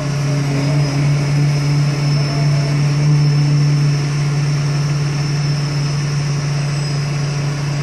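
Engine of the crane lifting a concrete bridge beam, running steadily with a low hum and a faint high whine.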